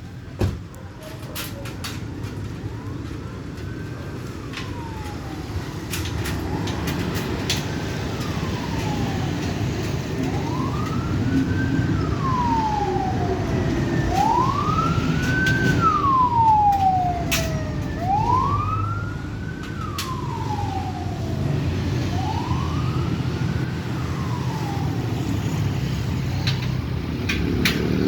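Emergency vehicle siren wailing in slow rises and falls, about one every four seconds, louder through the middle and fading near the end, over a steady low traffic rumble.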